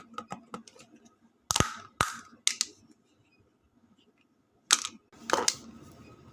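Slime being squeezed and pressed by hand, making sharp clicking and popping sounds in short bursts, with a quiet pause in the middle.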